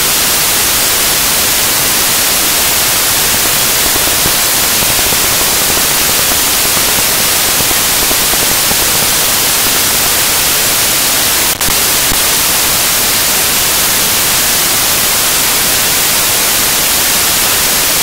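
Loud, steady static hiss across the whole range, digital noise from a corrupted stretch of the recording, with one very short dropout about eleven and a half seconds in.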